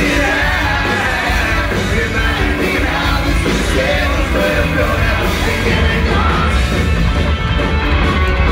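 A live ska-punk band playing loudly, with sung and yelled vocals over guitars, bass and drums.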